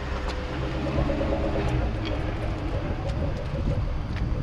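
A car engine idling, a steady low rumble, with murmuring voices in the background.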